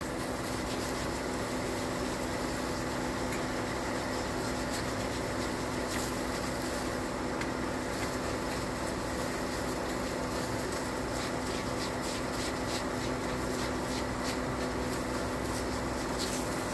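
Steady motor hum with a constant pitch, with faint scratchy rubbing strokes from a cloth and plastic-gloved hands working over a leather shoe.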